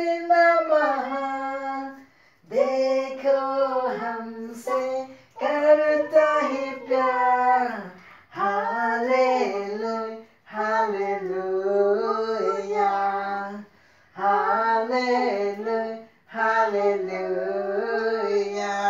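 A high voice singing a simple tune unaccompanied, in phrases of two to three seconds with short breaks for breath between them.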